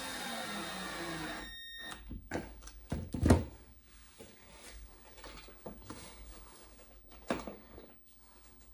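Cordless drill running for about a second and a half, driving a screw into the pine frame, then cutting off suddenly; after it come several clicks and knocks from handling the frame and tools, the loudest about three seconds in.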